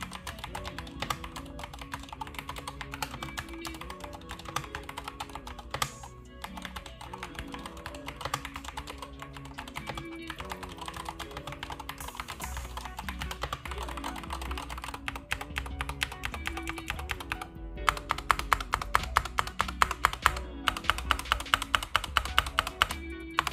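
Typing on a SteelSeries tenkeyless mechanical gaming keyboard, a fast stream of key clicks that grows louder and sharper in the last few seconds, over background music.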